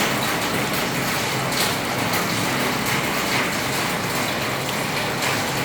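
Rainwater pouring and splashing into a collection container, a steady rush with fine crackle.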